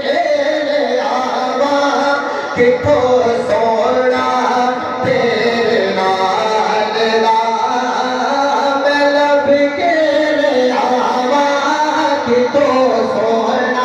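A man sings a Punjabi naat, a devotional poem in praise of the Prophet, into a microphone. The voice runs on without a break, with long held notes and ornamented slides between pitches.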